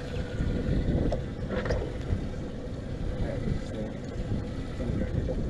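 Steady low rumble of wind on the microphone, with a couple of faint ticks.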